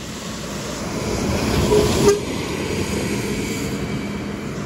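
Intercity coach driving past on a wet road, its engine and tyre noise growing as it nears and peaking about two seconds in, with two short horn toots as it passes.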